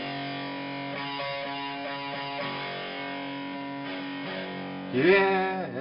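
Theme music led by guitar, with steady held chords. A voice-like bending tone comes in briefly about five seconds in.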